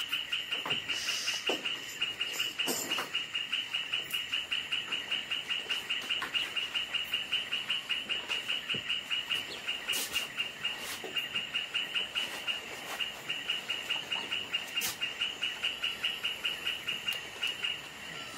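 Steady, rapid chirping of a night creature, a cricket or tree frog, at about four to five high chirps a second, with a few faint clicks now and then.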